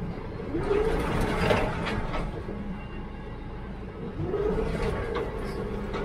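John Deere 317G skid steer's diesel engine running under load while towing a box blade over gravel, its pitch rising and then holding twice, about half a second in and again about four seconds in.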